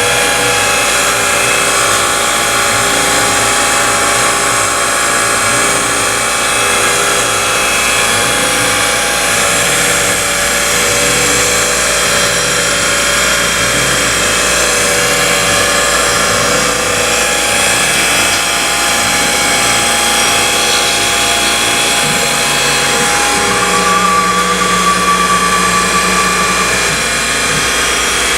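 CNC milling machine running, its spindle driving a small carbide end mill through the part: a steady machining noise with a regular low pulsing. Near the end, an extra steady hum joins for a few seconds.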